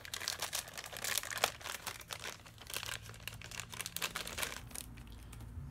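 A thin black plastic bag crinkling and rustling in the hands as it is pulled open to free a small figure, a dense run of crackles that thins out near the end.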